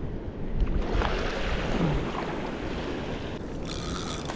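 Small waves washing over the sand at the shoreline, with wind buffeting the microphone.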